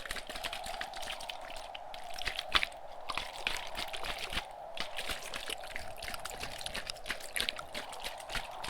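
Close-miked ASMR tapping and mouth clicks, quick and irregular, over a steady background wind sound; one click about two and a half seconds in is louder than the rest.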